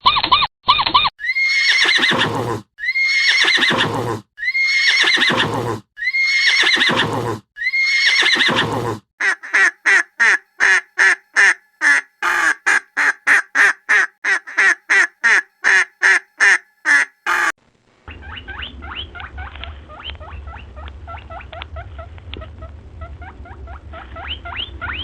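A run of looped animal-call recordings: first a horse whinnying five times in a row, each call long and falling in pitch. Then a different animal's quick short calls, repeated over and over. Last, a rough stretch of many short chirping pulses over a low hum.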